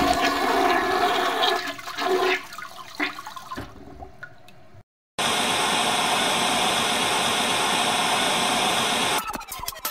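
Water rushing and gurgling, fading out over a couple of seconds. After a brief gap, a loud, steady, even hiss comes in suddenly and cuts off abruptly near the end.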